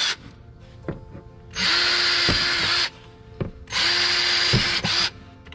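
Cordless drill boring holes through a cooler's hollow plastic lid: one run stops at the start, then two more runs of a little over a second each, starting about a second and a half and three and a half seconds in. Each run is the bit hissing through the plastic over the motor's steady whine.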